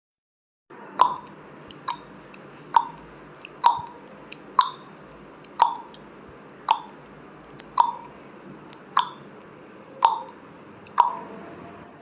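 Countdown timer sound effect: clock-like ticks about once a second, eleven of them, over a faint steady hiss.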